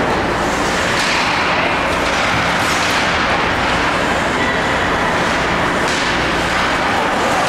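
Ice hockey rink during play: steady spectator chatter from the stands, with skates scraping on the ice and two sharp knocks of stick and puck, about a second in and near the end.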